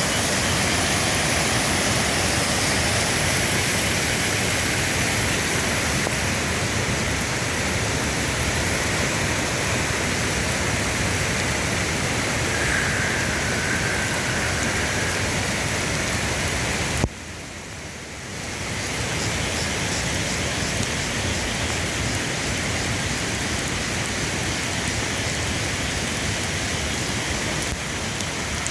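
Waterfall and steady rain together, a continuous rushing hiss. It drops suddenly quieter for a moment about 17 seconds in, then picks up again.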